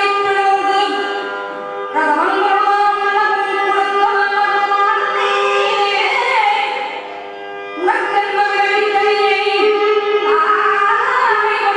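A woman singing a Carnatic devotional song with gliding ornaments over a steady drone. The voice breaks off briefly about two seconds in and again around seven seconds in, leaving the drone on its own.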